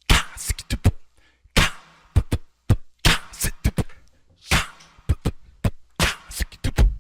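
A sparse percussive beat with no melody: short clicks and deep thumps, with a noisy snare-like hit about every second and a half.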